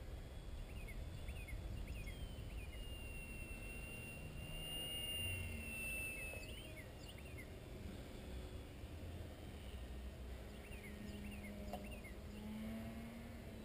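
Thin, distant whine of a small RC airplane's electric motor and propeller in flight. The whine holds a high pitch, drops a little about three seconds in, and fades out around six seconds, over wind noise. Short high chirps, likely from small birds, come and go.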